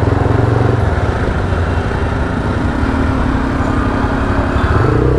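Taro GP V3 motorcycle engine running while ridden. Its engine note fades about a second in and comes back up near the end.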